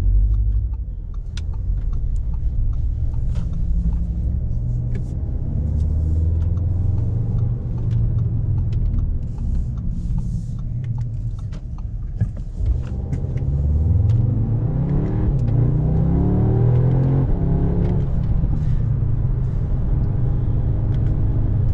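2021 Audi S3 sedan's 2.0-litre turbocharged four-cylinder engine, heard from inside the cabin while driving. About halfway through it accelerates hard, and its note rises in pitch in several steps as the dual-clutch gearbox shifts up.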